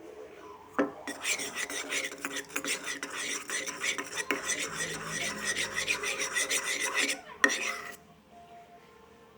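A spoon or stick scraping quickly and repeatedly round a bowl as a slime mixture is stirred, with a knock on the bowl just before the stirring starts and another just after it stops.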